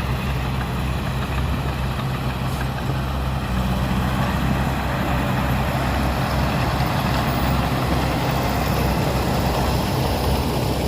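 Diesel engine of heavy earthmoving machinery running steadily, a low hum that grows a little louder about three and a half seconds in.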